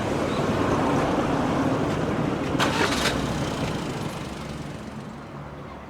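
Road traffic noise from passing vehicles, with a short sharp noise about two and a half seconds in. The traffic grows quieter over the last two seconds.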